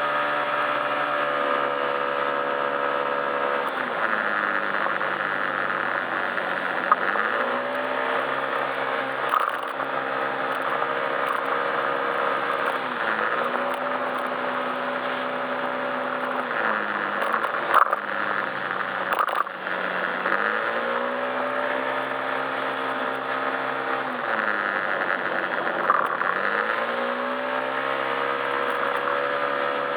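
Yamaha Majesty S scooter's single-cylinder engine under way, its pitch falling as the throttle closes and rising again several times, with a few sharp knocks in between.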